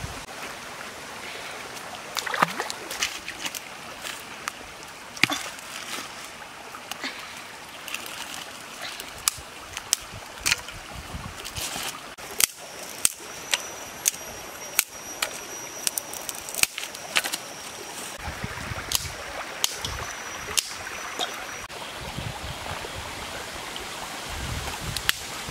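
Shallow stream trickling over rocks, with frequent sharp clicks and knocks of stones and dry sticks being handled on a gravel bank. A thin high steady tone runs through the middle stretch.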